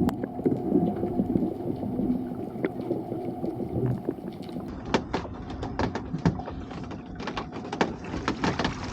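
A low rumble of water and small-boat motion, then a run of sharp knocks and clatters from about halfway in as a lobster pot is hauled aboard and handled.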